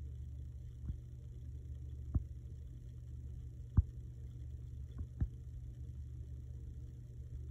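Low steady hum of room tone with a few scattered soft knocks, the loudest about four seconds in.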